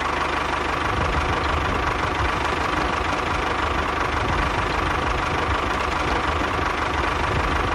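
Tractor engine running steadily at idle, with a low chugging rumble under a steady whine.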